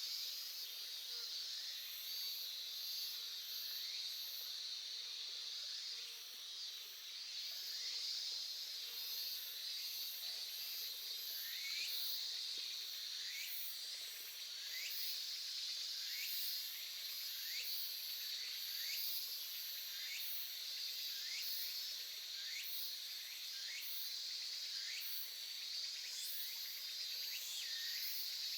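Shallow stream babbling steadily over rocks, overlaid by insects chirping in a fast pulsing rhythm and frequent short high chirps.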